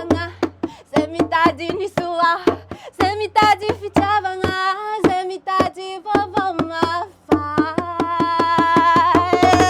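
Background music: a wavering melody over quick, sharp percussion hits and a steady low bass that drops out briefly twice.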